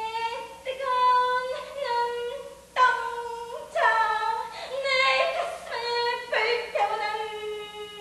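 A woman singing solo without words picked up as speech, a run of held notes about half a second to a second each with short breaks between them.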